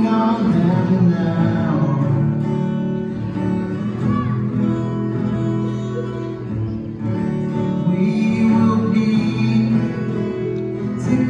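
A song played live on two acoustic guitars, with a man singing.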